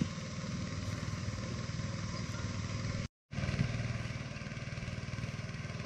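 A small engine running steadily at an even speed, cut by a brief gap of silence about three seconds in.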